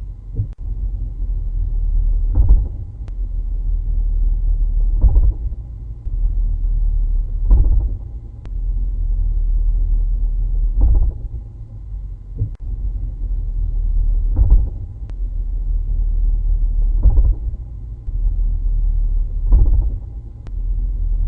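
Drivetrain of a 2016 Chevrolet SS with six-speed manual transmission, heard inside the cabin: a steady low rumble broken by a heavy thump every two to three seconds, about seven times. This is the bouncing-thumping driveline noise that developed in the car within its first 200 miles.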